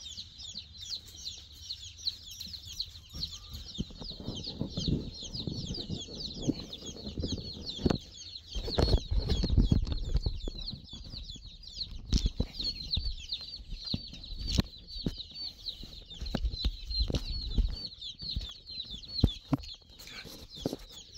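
A cardboard shipping box of day-old chicks (White Leghorn, New Hampshire Red and Delaware) peeping constantly: a dense chorus of short, high, falling cheeps. Scattered knocks and bumps run under it, loudest about nine seconds in.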